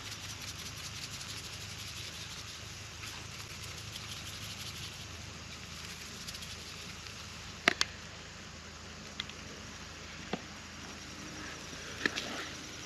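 Eggs and sausage sizzling in a cast iron skillet over campfire coals, a steady hiss, with a few sharp clicks about two-thirds of the way through.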